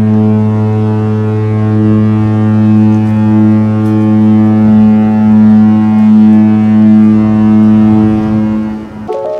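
Ship's horn sounding one long, steady low blast that cuts off near the end.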